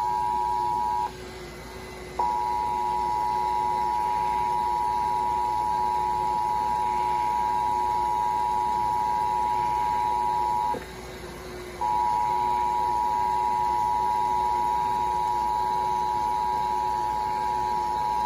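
Emergency Alert System two-tone attention signal received over AM radio: a steady, loud dual tone that breaks off twice for about a second before resuming, heralding an AMBER Alert.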